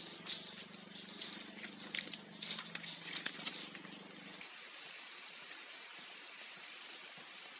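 Footsteps crunching through dry leaf litter and twigs, with bamboo branches rustling as a person pushes past them: a quick run of sharp crackles. A steady low hum underneath stops suddenly about four and a half seconds in, leaving only a faint outdoor hiss.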